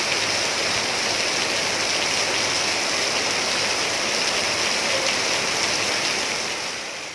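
Heavy tropical downpour: a steady, dense hiss of rain that fades out at the very end.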